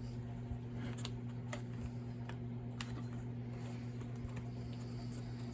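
Scattered light clicks and taps of small chainsaw parts and hand tools being handled during a tear-down, about five in a few seconds, over a steady low hum.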